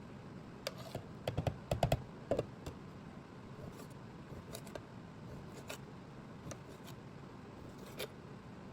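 Light clicks and knocks of kitchen utensils and containers being handled. A quick run of knocks comes about a second in, followed by a few scattered single clicks.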